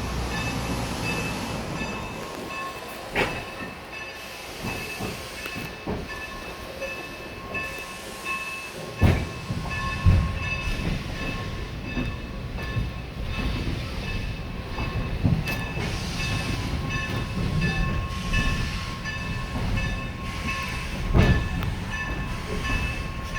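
Steam-hauled passenger train heard from aboard a coach: a steady rumble with scattered clanks and knocks from the cars. The loudest are two clanks about nine and ten seconds in, after which the rumble is fuller.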